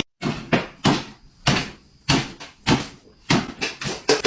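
A series of sharp knocks or bangs, about two a second at uneven spacing, like a cupboard door being knocked or banged repeatedly.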